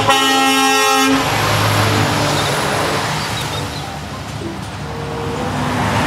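Semi-truck horn sounding for about a second, then the truck driving past with engine rumble and tyre noise.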